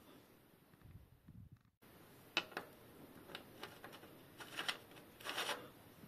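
Faint hand-handling of a threaded bottom bracket tap at a bicycle frame's threaded bottom bracket shell: a few light clicks, then two short scraping rubs near the end.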